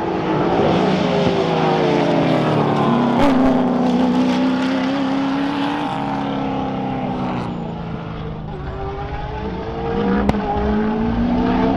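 Two sports sedan race cars' engines at racing speed, the pitch climbing and holding high, falling away for a few seconds, then climbing again. A single sharp pop comes about ten seconds in.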